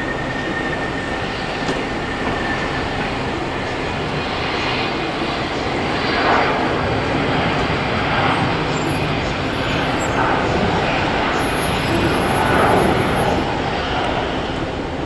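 Jet airliner engines running with a steady, loud rushing noise that swells a little around the middle and then eases.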